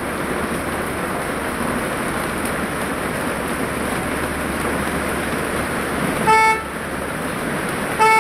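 Heavy rain falling steadily on a road, with a vehicle horn giving two short toots, one about six seconds in and another near the end.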